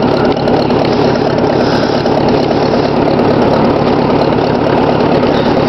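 1954 Ford NAA tractor's four-cylinder engine running steadily, still cold just after a cold start.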